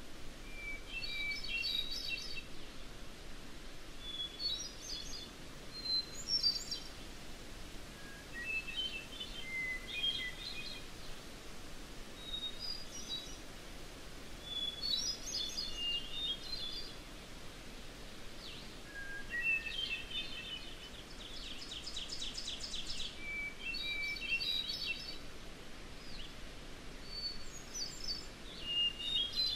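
Field recording of a songbird in a wild forest setting singing short separate phrases a couple of seconds apart. Each phrase opens on a held note and breaks into a quick cluster of higher notes, and each is pitched differently from the last. A faint steady hiss of outdoor ambience lies underneath, and a rapid trill of fast repeated notes comes about two-thirds of the way through.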